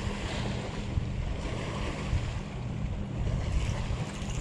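Wind buffeting the microphone over water lapping against a boat, with a steady low hum underneath.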